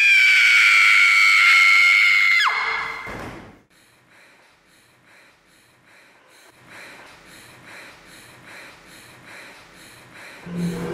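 A young woman's long, high-pitched scream, held for about two and a half seconds, then dropping in pitch and dying away. A quiet stretch follows, with faint, evenly spaced pulses about two or three times a second.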